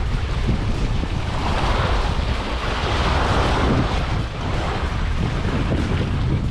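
Wind blowing across the microphone, with a steady low rumbling buffet; a louder rush swells about a second and a half in and eases off around four seconds.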